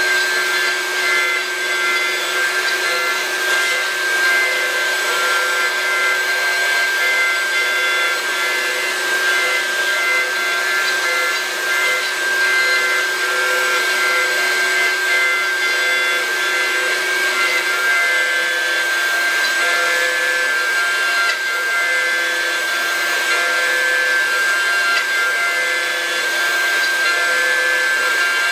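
CNC router spindle running at high speed while a small end mill carves a relief into a wooden board: a steady whine with the noise of the cutter chewing through the wood.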